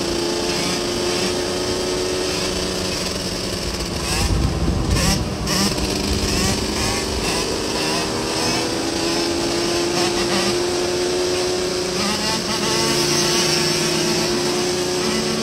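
Motorcycle engines running on a group ride, one held at steady revs with a nearly constant pitch. A burst of lower rumble swells about four seconds in and fades about two seconds later.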